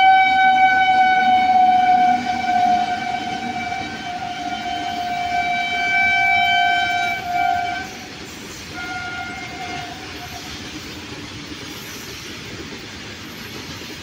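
An Indian Railways electric freight locomotive's horn sounding one long steady blast of about eight seconds, then a short second blast, over the noise of the train running past. After the horn stops, only the steady rolling noise of the train remains.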